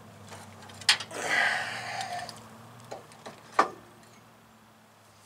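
Sharp metal clicks from handling a brake caliper on a pickup's front hub: one about a second in, with a brief scraping after it, and another, louder, about three and a half seconds in.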